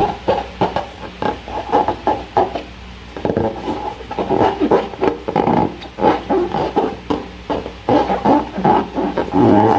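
Slime and a rubber balloon being handled by hand: irregular sticky squelches and clicks mixed with short rubbery squeaks, continuing throughout.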